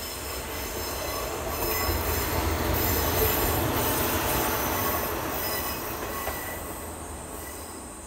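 An Akechi Railway diesel railcar passes: the low engine rumble and the rolling of its wheels on the rails swell to a peak about halfway through, then fade away. Thin, high wheel squeal runs through the pass.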